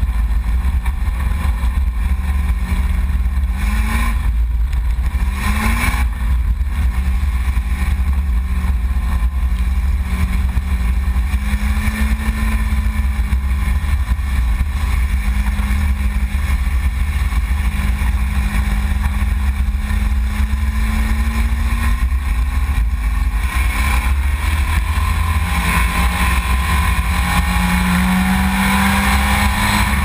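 Street stock race car engine heard from inside the cockpit under a heavy, steady low rumble. It runs at a low, wandering speed, blips the throttle twice briefly about four and six seconds in, and picks up over the last few seconds.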